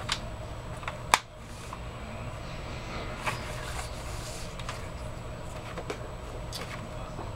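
Sheets of patterned scrap paper being picked up and shuffled by hand, with one sharp click about a second in, over a low steady hum.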